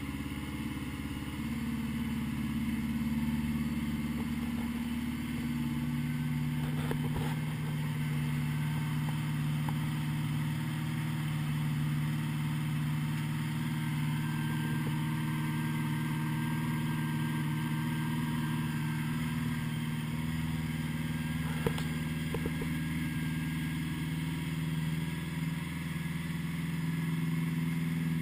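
1980 Honda GL1100 Gold Wing's flat-four engine idling during warm-up from a cold start, its freshly rebuilt carburettors in synch. About five seconds in the idle settles to a lower, steady note, and a brief sharp click sounds near the end.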